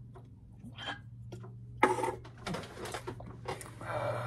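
A person's sharp, noisy breath about two seconds in, then rough breathing and mouth noises while reacting to a sip of a drink, over a steady low hum.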